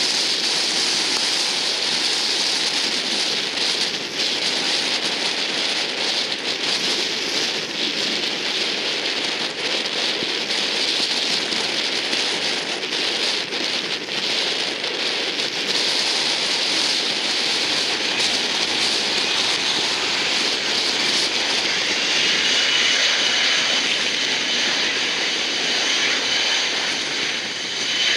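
Boeing RC-135's four turbofan engines running as the jet sits on the runway: a steady jet hiss, with a thin whine rising slowly in pitch from about three quarters of the way through.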